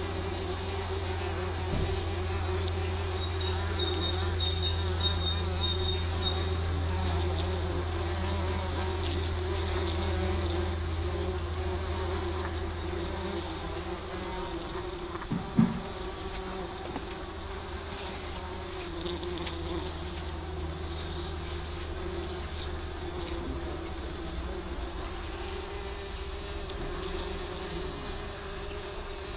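Bumblebees buzzing steadily at the entrance of a commercial bumblebee hive box as workers crawl out and take flight. A run of short, evenly spaced high chirps sounds a few seconds in, and a single brief knock comes about halfway.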